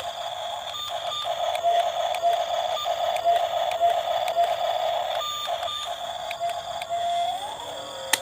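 Small electric motors of a radio-controlled toy excavator whining steadily under a constant high tone, with a pitch that rises briefly near the end and scattered sharp clicks.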